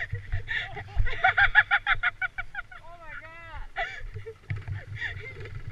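A person laughing hard, a fast run of loud ha-ha-ha bursts starting about a second in, breaking into high squeaky wheezes and then tailing off, over a low steady rumble.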